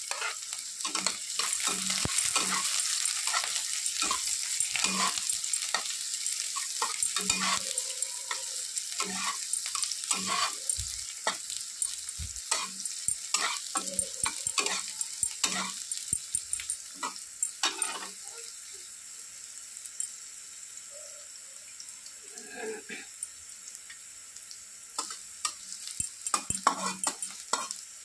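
Chopped onions frying in hot oil in a metal kadai, sizzling, while a steel spatula scrapes and knocks against the pan as they are stirred. The sizzle is strongest at first and dies down after about 18 seconds, with more scraping strokes near the end.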